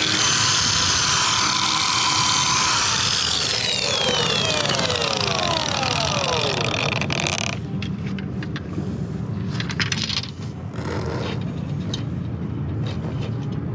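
Cordless angle grinder with a cutting disc running at speed with a loud hiss, then let off and winding down in a falling whine that stops about seven and a half seconds in. After that there are scattered light clicks over a steady low hum.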